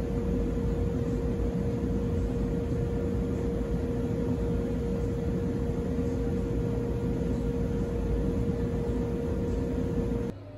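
Motor-driven polishing (buffing) wheel running steadily with a constant hum while the flat of a steel usuba kitchen knife is polished to a mirror finish against it. It cuts off abruptly near the end.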